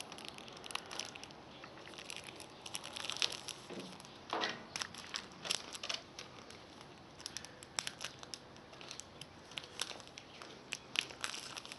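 Plastic wrapping being handled, crinkling and rustling in irregular bursts with small clicks.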